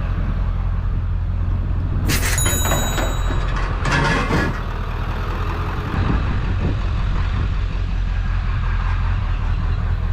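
Truck engine running steadily, with a brief high squeal about two seconds in and another short burst of noise about two seconds later.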